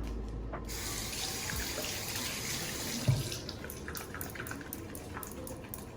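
Running water starting about half a second in, strongest in the first half, then lighter. A dull knock comes about three seconds in, followed by scattered small clicks.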